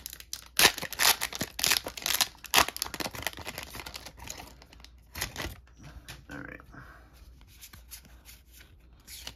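Foil trading-card booster pack wrapper being torn open and crinkled: a run of loud rips and crackles over the first three seconds and another near five seconds, then quieter rustling as the cards are slid out and handled.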